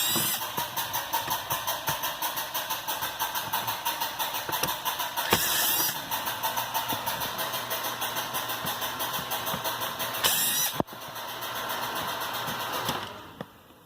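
Cordless drill-driver running with a fast, even pulsing, backing out the glove box's small Phillips screws, stopping abruptly about eleven seconds in.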